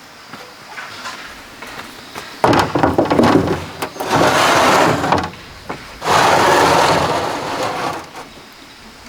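Three long rasping scrapes of bamboo being worked, the third the longest.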